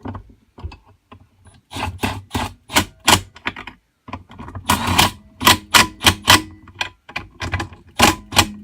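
Irregular metal clicks and clacks of a Pioneer 1073 chainsaw's bar and chain being handled and fitted onto the saw, a rapid series of short knocks with brief pauses.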